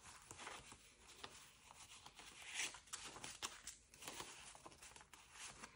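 Faint rustling and crinkling of paper banknotes being handled and sorted, with a few light clicks and taps.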